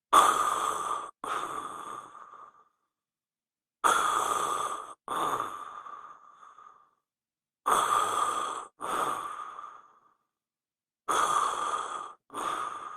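A person snoring in heavy, noisy breaths: four cycles, each a harsh breath in followed after a short break by a breath out that fades away, repeating about every three and a half seconds.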